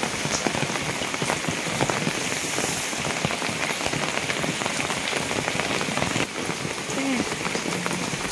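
Steady rain falling, a dense patter of drops on the umbrella held overhead.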